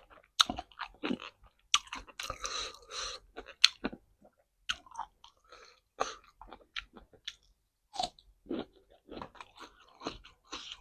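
A person chewing crunchy food close to the microphone, with irregular crisp crunches and wet mouth sounds, busiest a couple of seconds in.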